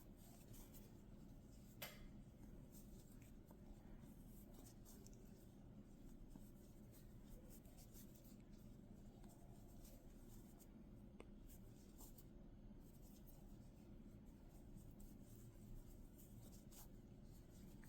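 Faint scratching and light ticks of a crochet hook pulling yarn through stitches, over a low steady room hum.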